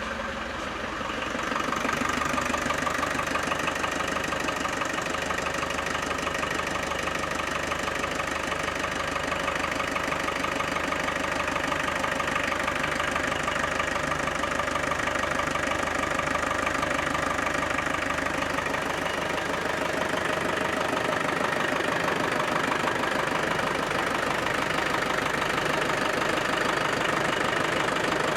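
Land Rover Defender 300Tdi 2.5-litre four-cylinder turbodiesel idling steadily. It is a test run just after a new boost hose and wastegate hose were fitted to the turbo. The sound gets a little louder over the first couple of seconds, then holds steady.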